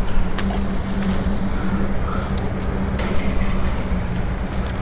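A steady low engine hum with a rumble underneath, with a few light clicks scattered through.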